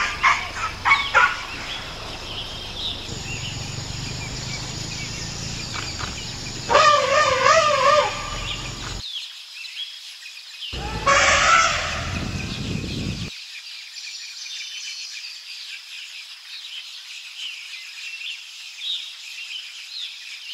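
Forest ambience with bird calls and a steady high drone, broken by cuts between clips. A loud wavering call comes about seven seconds in, and a short loud burst about eleven seconds in.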